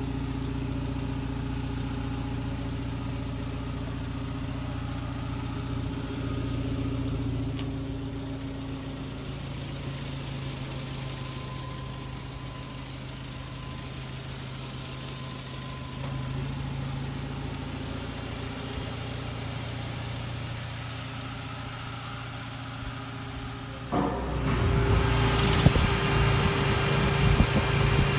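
Mazda Bongo truck's engine idling steadily. Near the end it turns suddenly louder and rougher, heard up close at the open engine compartment under the cab.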